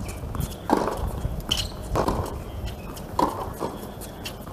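Tennis ball being hit back and forth in a baseline rally on a hard court: sharp racket strikes and ball bounces about a second and a quarter apart, over a low outdoor rumble.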